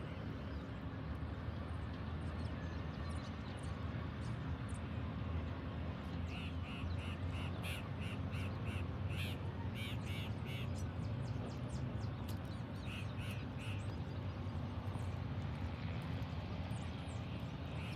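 A crow cawing in runs of short harsh calls, about two a second, starting about six seconds in, with shorter runs later, over a steady low drone.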